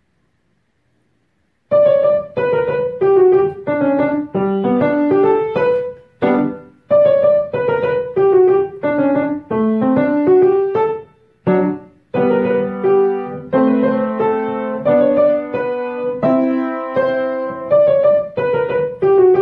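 Piano played with both hands: a simple melody over chords, starting about two seconds in, with short breaks between phrases.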